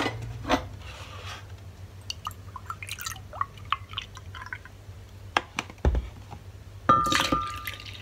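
Milk poured from a carton into a ceramic mug, with small clicks and clinks of handling. About seven seconds in, a louder clink with a brief ring as the mug meets the glass blender jar to pour the milk in.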